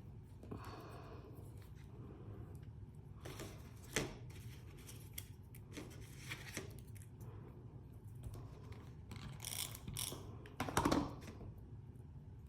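Small paper pieces being handled and set down on a scrapbook page: scattered light rustles and taps, with a sharp tick about four seconds in and a louder rustle near the end.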